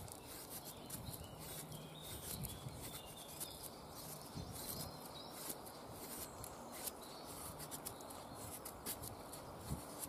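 Fixed-blade knife shaving curls down a wooden stick to make a feather stick: a run of short scraping strokes of blade on wood.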